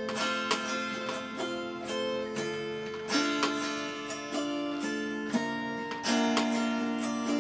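Acoustic guitar playing a slow instrumental passage of plucked and strummed chords between sung lines.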